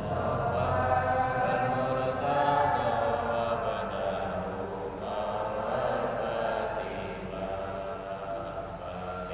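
Arabic prayer chanted in long, drawn-out melodic lines, in the manner of an Islamic dhikr or closing supplication.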